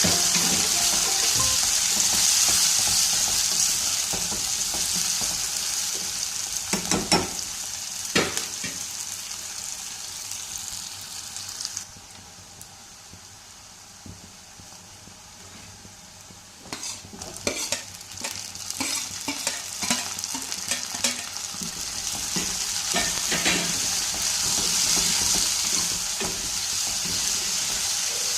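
Food frying in hot oil in a pan, a steady sizzle, with a spoon stirring and knocking against the pan now and then. The sizzle drops away for about four seconds near the middle, then comes back with a run of spoon knocks.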